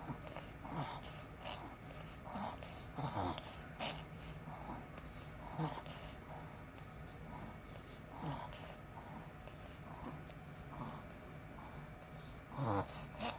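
A Pomeranian making a series of short, sharp nasal gasps at irregular intervals of a second or two, several falling in pitch, the loudest near the end. The owner suspects this is reverse sneezing.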